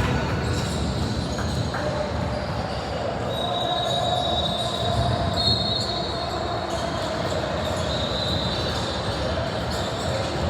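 Gymnasium sound during a basketball game: a ball bouncing on the court and voices echoing in a large hall, with a few brief high squeaks.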